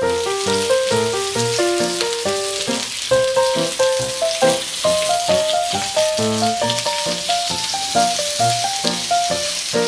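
Skewered Vienna sausages and rice cakes sizzling in oil in a frying pan, a dense steady hiss that starts and stops abruptly. Piano music plays underneath.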